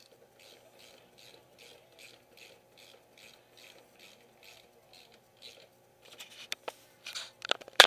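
Socket ratchet wrench clicking in quick, even strokes, about four a second, as it turns the scooter's front axle bolt tight. Then a few sharp knocks near the end.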